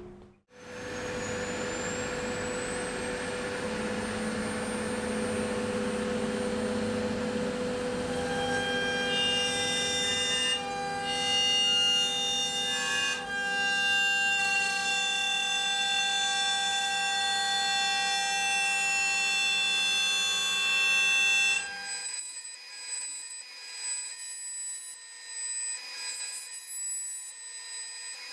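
CNC router spindle spinning up with a rising whine, then a 19 mm round-nose router bit cutting a slot in pine with chatter and a loud, many-toned screech from about eight seconds in; the maker takes the horrible noise as a sign that the depth of cut is too deep. Near the end the sound changes abruptly and the low rumble drops out.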